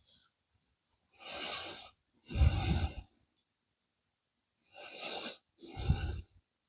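A person breathing close to the microphone: two slow breaths, each a softer in-breath followed by a louder out-breath that puffs on the mic.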